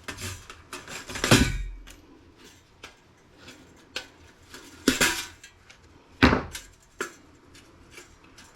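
Small metal laptop parts clinking and clattering as they are handled and set down. The loudest clatter comes about a second in, followed by a few separate sharp clinks.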